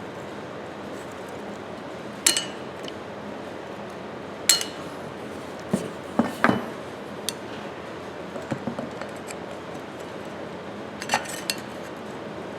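Sharp, irregular metal clinks and taps as steel hand tools and the parts of a Ridgid pipe wrench knock together during disassembly, while the wrench's spring is being worked out.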